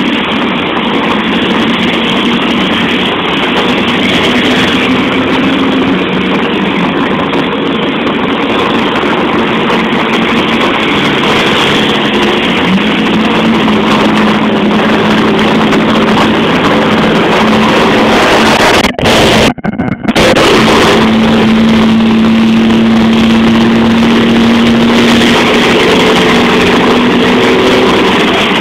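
Heavy rain falling on an umbrella held close over the microphone, a loud steady hiss, with a low steady engine hum of traffic underneath. The sound drops out briefly about two-thirds of the way through.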